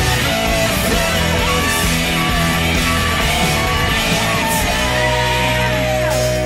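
Rock music soundtrack with guitar over a steady bass line.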